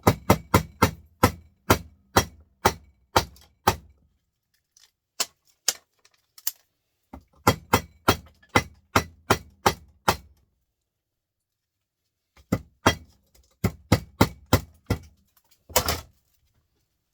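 Rapid hammer blows on a metal scrap part, about three a second, in three runs with short pauses between them, then one longer rattling crash near the end.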